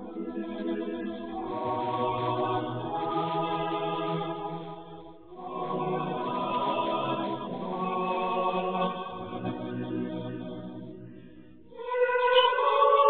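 Choir singing a slow hymn in held chords, phrase by phrase. One phrase fades about five seconds in before the next begins, and a louder phrase enters near the end.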